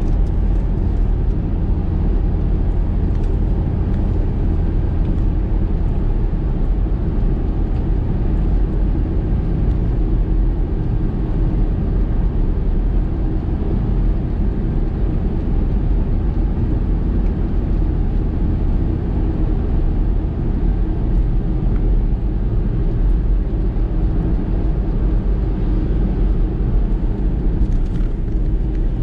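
A car driving steadily along a road: an even, low rumble of engine and tyre noise.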